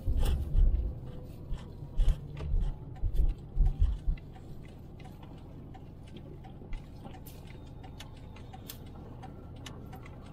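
Car driving slowly on a city street, heard from the dash camera: low rumbling thumps through the first four seconds, then a steady low road hum with many light ticks and clicks.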